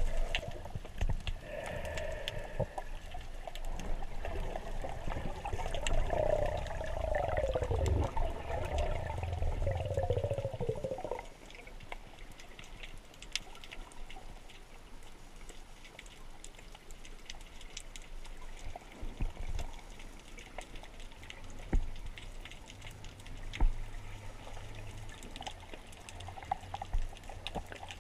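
Underwater sound picked up by a camera in its housing during a spearfishing dive: gurgling, bubbling water for roughly the first eleven seconds, then a quieter hiss with scattered faint clicks.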